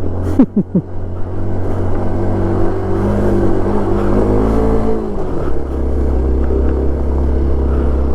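Single-cylinder engine of a Hero XPulse 200 4V motorcycle running as it rides along the trail; its pitch climbs slightly, then drops to a lower, steady note about five seconds in.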